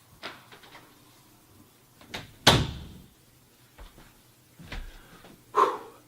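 A series of separate knocks and bangs, the loudest about two and a half seconds in, with a short ringing decay, and another strong one near the end.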